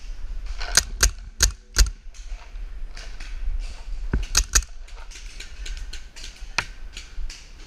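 Paintball markers firing: four sharp pops in quick succession about a second in, three more around four seconds in, then a string of fainter pops.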